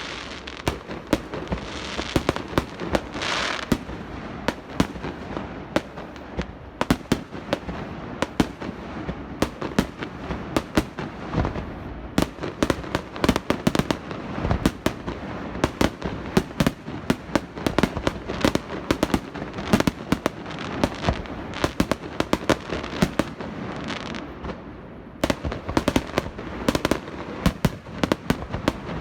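Fireworks display: a dense, continuous barrage of shell bursts and crackling, several sharp bangs a second with hissing, crackling washes in between.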